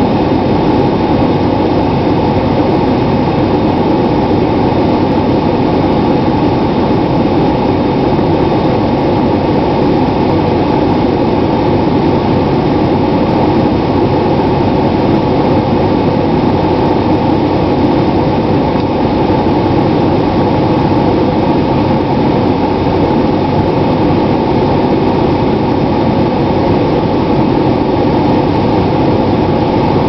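The 6.7-litre inline-six Cummins turbo-diesel of a 2011 Dodge Ram 3500 idling steadily, heard from inside the cab.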